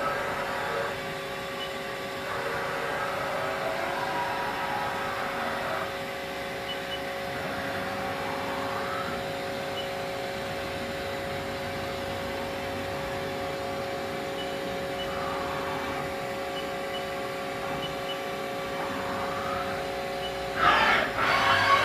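Haas ST20 CNC lathe running with a steady whine, a broader whirring swelling and fading in stretches over it. Near the end, a short burst of clattering knocks.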